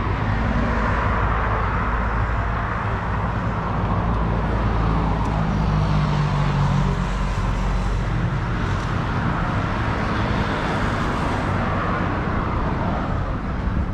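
Steady road traffic noise: motor-vehicle engines and tyres, with the noise swelling and easing every few seconds.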